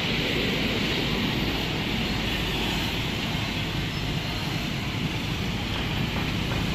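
Steady city street ambience: a continuous rumble of road traffic under a hiss.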